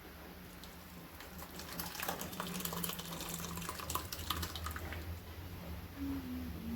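Water running and splashing, with irregular trickling and drips, over a steady low hum.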